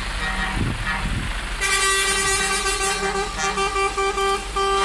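Truck horn honking in a string of short and longer toots, starting about a second and a half in, over the low rumble of idling diesel truck engines.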